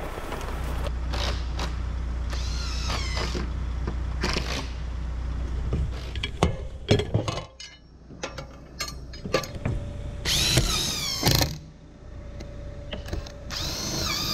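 A power tool running in several short spurts amid knocks, over a steady low hum that stops about six seconds in.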